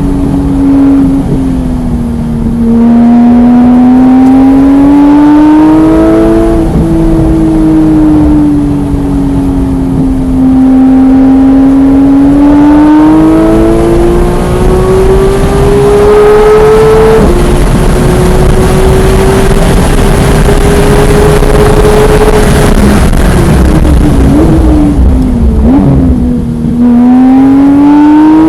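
Porsche 991.1 GT3's naturally aspirated flat-six engine run hard on track, heard from inside the car. Its pitch climbs and sinks slowly as the car accelerates and slows, drops sharply once about two thirds of the way in, then falls in short jagged steps before climbing again near the end.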